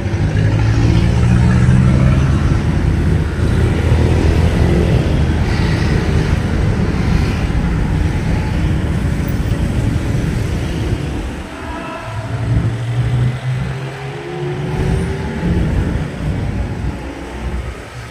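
Steady low engine rumble, easing off about twelve seconds in and then building again.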